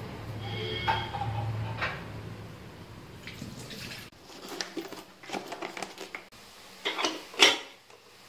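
Aluminium pressure cooker being closed: a series of metal clanks and knocks of the lid going on, the loudest near the end. A steady low hum underlies the first half.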